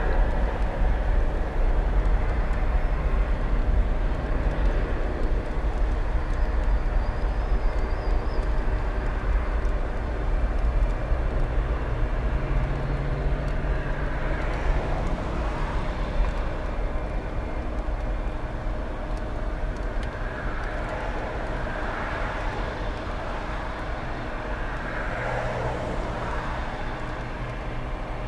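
Boeing 737 airliner's jet engines at takeoff thrust: a steady low rumble with a rushing roar as it rolls down the runway and climbs away, slowly fading through the second half.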